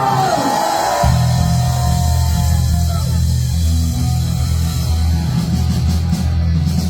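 A live rock band playing loud heavy rock: distorted guitar and bass come in about a second in and hold a heavy low chord.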